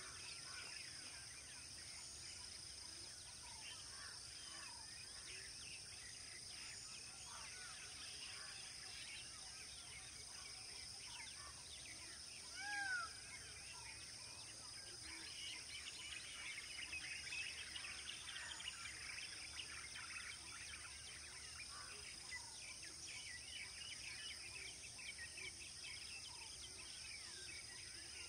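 Faint open-country ambience at dusk: a steady high-pitched insect drone under many small bird chirps, which grow busier in the second half. About 13 seconds in, a single louder call rises and falls in pitch.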